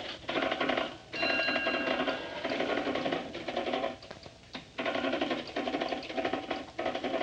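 A mechanical rattling buzz in short repeated bursts of about a second each, stopping and starting again and again.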